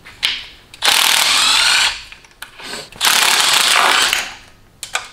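Hand-held cordless power tool buzzing out valve cover bolts, running in two bursts of about a second each.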